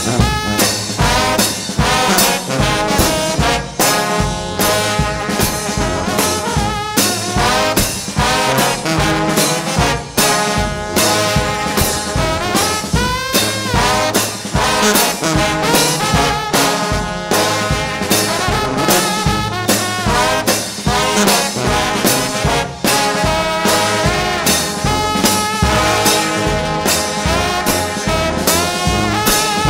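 Trombone shout band playing: several trombones in full ensemble over a steady, driving beat, with lines sliding up and down in pitch.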